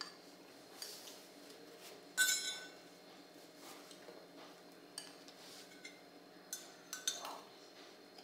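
Metal spoon clinking against a ceramic plate while scooping food: several sharp clinks, the loudest a little over two seconds in, and a cluster more in the second half.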